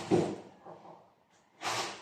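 Roundhead gamefowl pecking grain off a cloth-covered table: two short, soft knocks of the beak, one just after the start and a louder one near the end.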